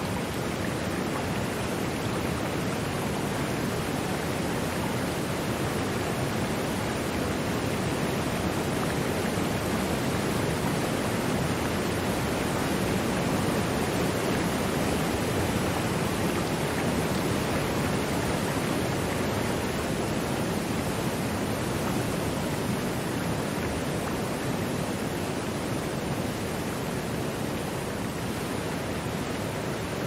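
Waterfall: falling water making a steady, even rush with no breaks or changes.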